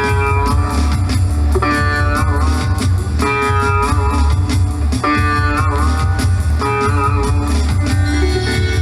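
Background music: a guitar-led track over a steady heavy bass, with a melodic phrase repeating about every second and a half.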